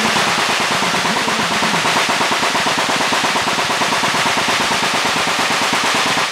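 Sustained rapid automatic gunfire: a steady rattle of many shots a second with no pause.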